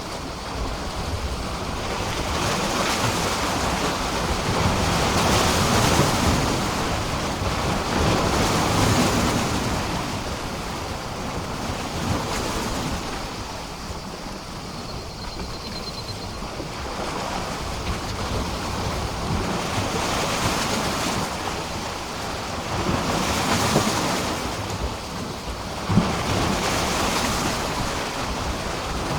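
Sea waves washing and breaking against a pier, the wash swelling and easing in slow surges every few seconds. A short sharp slap or knock stands out near the end.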